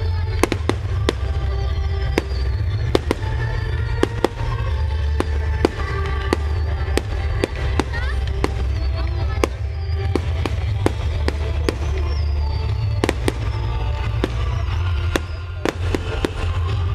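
Aerial fireworks shells bursting in quick succession, many sharp bangs at roughly two a second, over music playing throughout.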